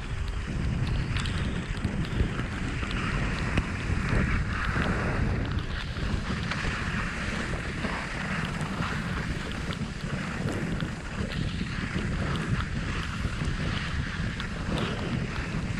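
Wind buffeting the microphone during a downhill run on skis or a snowboard, with the hiss of edges sliding and scraping over packed snow rising and falling throughout.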